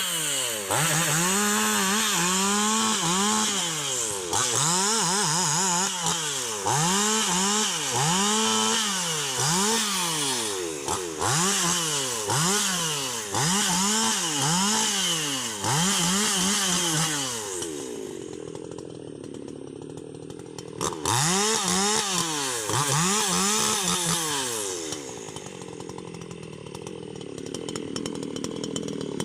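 Husqvarna 288 XP two-stroke chainsaw revved up and down over and over, about one rise and fall every second and a half. Past the middle it drops back to idle, revs twice more, then idles again near the end.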